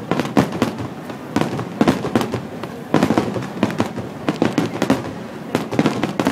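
Aerial firework shells bursting in a rapid barrage, many sharp bangs and crackles overlapping in clusters a second or so apart.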